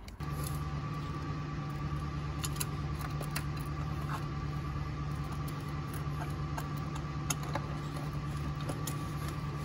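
Scattered small clicks, taps and rattles of hands and tools working hoses and fittings in a car's engine bay, over a steady low hum.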